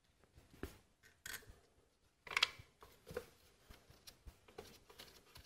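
Scattered faint clicks and rustles of gloved hands handling a new ignition coil and its small mounting bolts on the engine, with a slightly louder rustle and click about two and a half seconds in.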